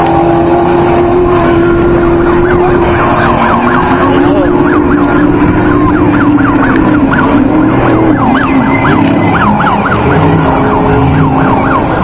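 Off-road race truck engines running hard at high revs: one holds a steady note that slides down in pitch, and from about 8 s in another climbs in pitch in repeated steps as it shifts up through the gears. Over them, from about 2.5 s in, a high whooping tone rises and falls a few times a second, like a siren.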